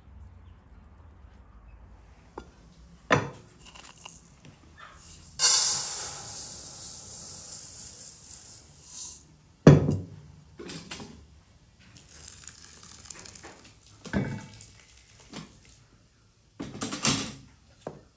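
Kitchen handling sounds: separate knocks and clinks of an enamel bowl, dishes and a wooden lid, the loudest about halfway through. A steady hiss lasting a few seconds comes before it, as dry rice is handled in the enamel bowl.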